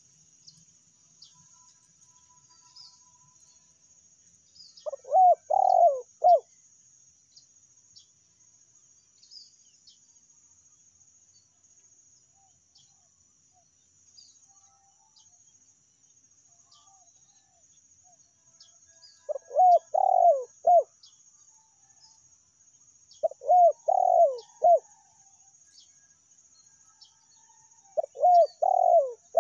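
Spotted dove cooing: four separate phrases of three or four short, arched coo notes, spaced several seconds apart, the last one cut off at the end. A faint, steady, high insect drone runs underneath.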